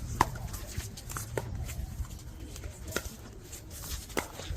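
Pickleball rally: four sharp paddle-on-ball pops about a second and a half apart, over a low rumble of wind on the microphone.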